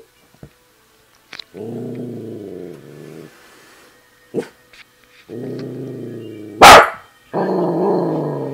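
A dog growling in three long, low rumbles, with one sharp, loud bark about six and a half seconds in, the loudest sound. It is a warning growl at the television.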